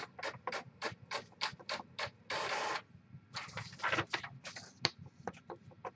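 Paper being handled: a string of light taps and clicks, with a few short swishes of paper sliding about halfway through.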